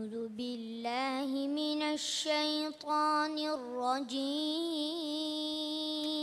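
A boy's voice reciting the Quran in a melodic tajweed style, holding long notes with ornamented pitch bends and turns. The voice stops abruptly near the end.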